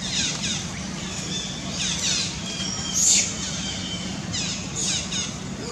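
Short, high calls in quick downward-sweeping runs of three to five, repeating every second or two, with one louder burst about three seconds in, over a steady low hum.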